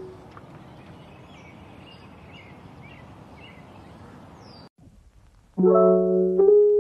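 Background music: a piano chord dies away into a soft, steady hiss with faint high chirps, then a short silence, and a new solo piano piece begins near the end.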